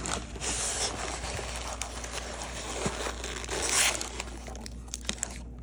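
Packaging crinkling and rustling as it is handled, with many small clicks, louder about half a second in and again around three and a half seconds in.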